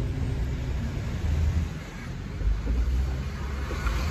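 Low rumble of a car's engine and road noise heard from inside the cabin while driving on wet streets.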